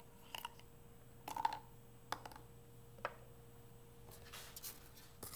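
Light clicks and taps of small metal and plastic parts being handled: the indicator's tip is taken out of its plastic tube and set down on a wooden workbench. There are about half a dozen scattered clicks over a faint steady hum.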